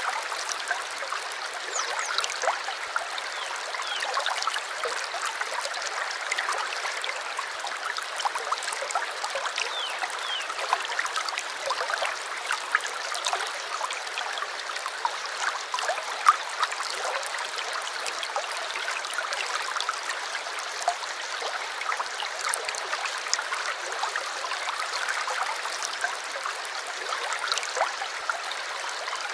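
A shallow stream trickling and babbling steadily over stones, a light, splashy flow with no deep rumble.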